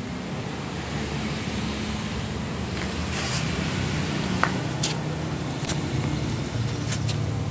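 Steady low rumble of road traffic noise, with a few faint clicks in the second half and one brief high chirp about four and a half seconds in.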